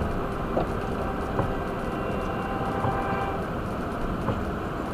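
Car driving on a wet road, heard from inside the cabin: a steady rush of road and tyre noise, with a light knock about every one and a half seconds.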